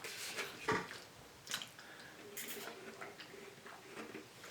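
Faint wet chewing and mouth smacks from someone eating smoked pork ribs, a few sharp clicks scattered about a second apart.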